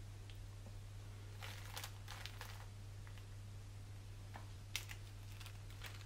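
Quiet food-preparation handling: soft crinkling and scraping for about a second, starting about a second and a half in, as egg filling is spooned onto ham slices on a plate laid over cling film, then a few light ticks and one sharp click about three-quarters through. A low steady hum sits underneath.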